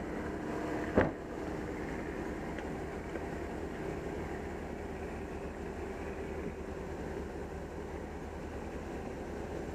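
Steady driving rumble of a Suburban flat-towing a Jeep Wrangler on a tow bar, heard at the rear hitch, with one sharp knock about a second in.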